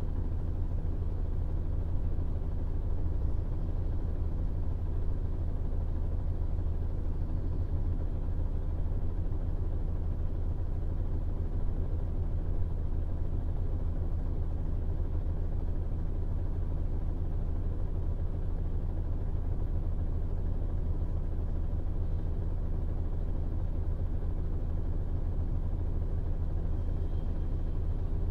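MAN Lion's Coach diesel engine running at a steady speed, a low, even drone that does not rise or fall.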